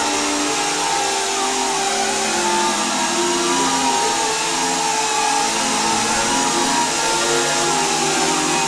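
Small 7.4 V quadcopter's motors and propellers whining as it hovers, the pitch wavering up and down as the throttle is worked.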